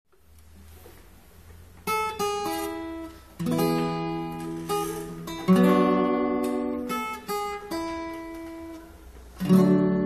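Acoustic guitar music: plucked notes and chords that ring out and fade, starting about two seconds in after a faint hiss, with new chords struck every couple of seconds.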